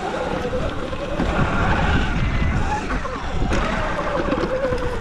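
Wind buffeting the microphone over the whine of a Sur-Ron electric dirt bike riding over dirt, the whine rising and falling in pitch with the throttle.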